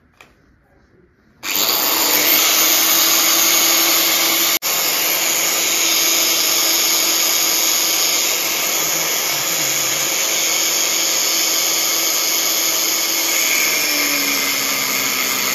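Handheld angle grinder with a cutting disc starting about a second and a half in and running steadily as it cuts through a flat steel strip. The sound breaks off for an instant about four and a half seconds in. Near the end its pitch drops a little as the disc bites into the steel.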